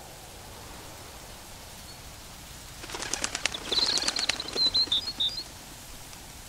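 A bird taking flight: a quick run of loud wingbeats starting about three seconds in and lasting a couple of seconds, with short high chirps in the second half, over a faint steady hiss.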